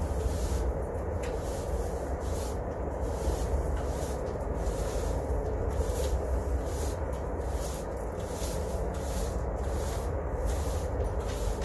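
Brooms sweeping a concrete slab, with repeated rough scratching strokes a little more than once a second over a steady low rumble.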